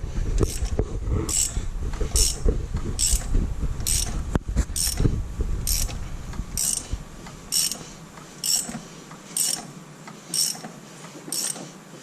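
Ratchet wrench clicking in short, regular strokes, about one a second, as it turns a tool that presses the crank pulley (harmonic balancer) onto the crankshaft of a 6.0 L LS V8. A low rumble underneath stops about seven seconds in.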